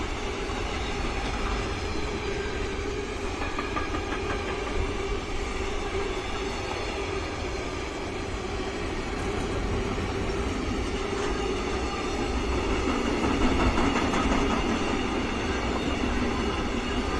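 Tank wagons of a long freight train rolling past on the rails: a steady rumble and clatter of steel wheels, a little louder about thirteen seconds in.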